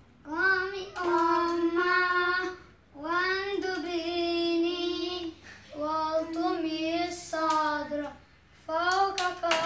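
A child singing a slow tune in long held notes, in several phrases with short breaths between.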